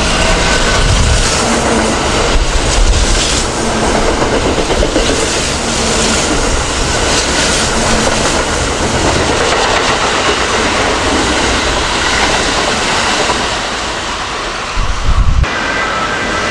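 Kintetsu electric train running along the track, its wheels clacking over rail joints. About fifteen seconds in, a short burst of louder noise.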